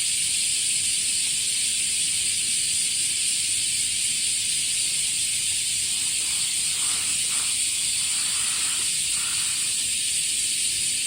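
Chorus of cicadas singing in a steady, high-pitched drone.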